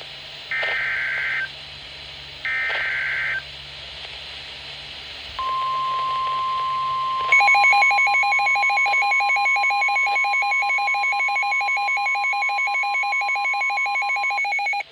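NOAA Weather Radio emergency alert tones. Three short, buzzy SAME digital data bursts are followed by the steady single-pitch weather radio warning alarm tone. A few seconds later a louder, rapidly pulsing electronic alarm joins in, and both cut off just before the end.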